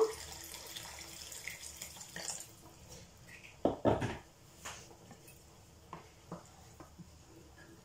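Water poured from a kettle into a sauté pan of simmering sauce, splashing and tapering off over the first two seconds or so. Then a few sharp knocks of kitchenware, the loudest about four seconds in, and lighter taps of a wooden spoon stirring in the pan.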